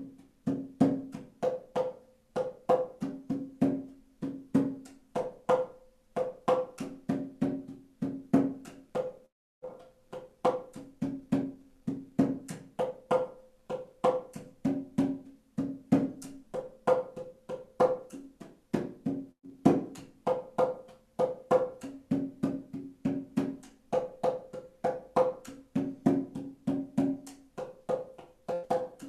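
Rhythmic hand percussion: quick, even strikes about three a second, each with a short pitched ring, played in phrases with brief breaks.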